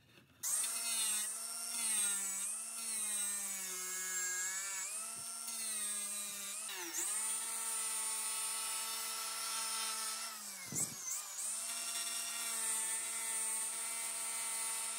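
Small angle grinder with a sanding disc running, grinding out a channel in a wooden gun stock. The motor's whine wavers as it is pressed into the wood and sags sharply twice, about seven and eleven seconds in.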